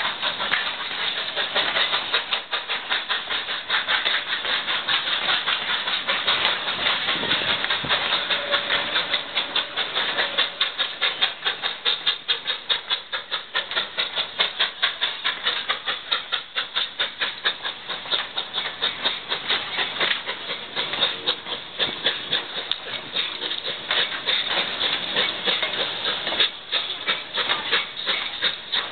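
Durango & Silverton narrow-gauge steam train backing slowly alongside, its coaches rolling past in a rapid, even beat of sharp clicks over a steady noise.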